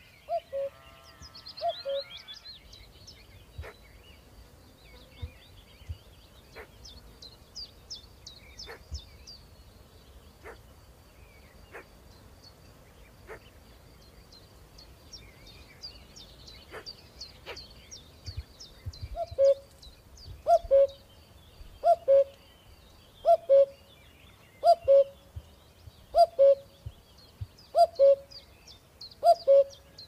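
Small cage birds, finches and canaries, chirping and twittering faintly in high, short notes. From about two-thirds of the way in, a low two-note hooting call repeats about every second and a half and stands out as the loudest sound.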